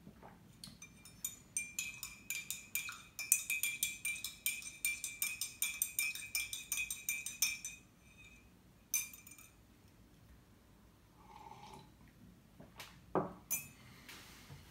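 A metal spoon stirring in a mug, clinking quickly against its sides, about four clinks a second with a ringing note, for around six seconds; one more clink follows a little later.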